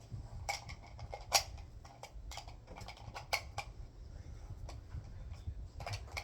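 Irregular light metallic clicks and clinks from gear being handled, about seven in all, over a low steady rumble of wind on the microphone.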